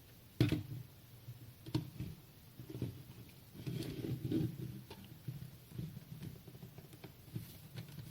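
Clicks and light knocks of hands handling a small computer's plastic and metal parts, starting with a sharp click about half a second in and followed by a cluster of knocks and rubbing around the middle.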